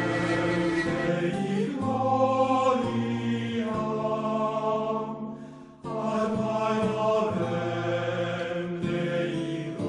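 Background music in a slow chant style: long held notes over a low sustained drone. It fades to a brief gap a little past halfway, then starts again.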